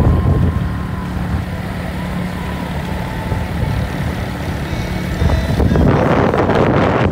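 Engine and road noise of a moving vehicle, a steady low drone, heard from on board. About three-quarters of the way through a louder rush of wind and road noise swells up.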